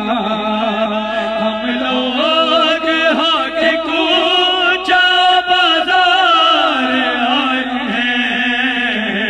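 A male reciter singing a noha, a Shia mourning lament, in long, wavering drawn-out notes without a break, his voice amplified through a hand-held microphone.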